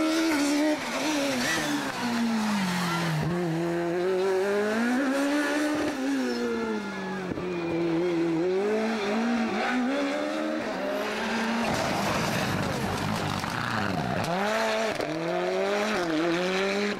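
Rally car engines revving hard through a hairpin, the engine pitch repeatedly climbing under throttle and falling on lifts and gear changes. A second car takes over about two-thirds of the way in, its revs dipping sharply and climbing again.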